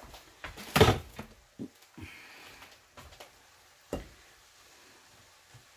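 Silicone spatula stirring and chopping ground turkey and shredded cabbage in a sauté pan. It knocks and scrapes against the pan, loudest in a clatter about a second in, with a few lighter knocks and one more sharp knock near four seconds.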